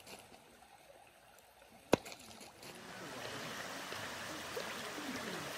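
Shallow stream running over stones: faint at first, then louder and steadier from about three seconds in. One sharp click about two seconds in is the loudest sound.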